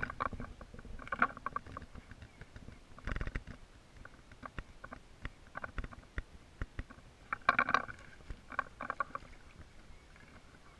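Irregular sharp clicks and light knocks from the fishing reel and the inflatable boat as a big carp is played on a bent rod, with denser flurries of clicks about a second in, about three seconds in, and again between seven and nine seconds.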